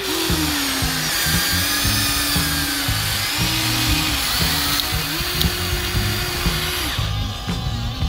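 Electric motors of a Huina remote-control toy excavator whining as the arm swings and the bucket digs and lifts gravel. The whine starts and stops in spurts, shifting in pitch, and ends near the end. Background music plays underneath.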